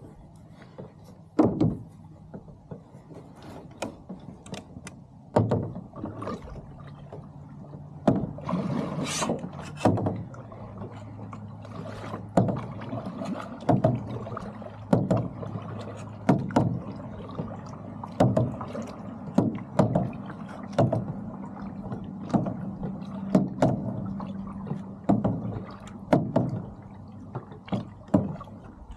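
Boat under way with water slapping against the hull about once a second, each slap a sharp splash. A steady low engine hum runs underneath.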